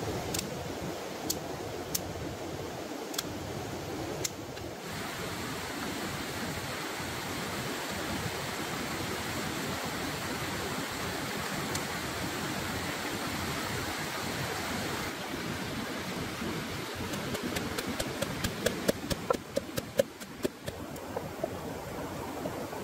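A steady rushing hiss, with scattered sharp clicks in the first few seconds. Near the end, a wooden pestle knocks and crushes fresh red chilies in a wooden mortar: a quick run of knocks, with the loudest about 18 to 21 seconds in.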